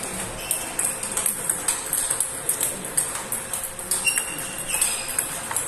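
Table tennis balls clicking against rackets and table tops in quick, irregular succession during rallies.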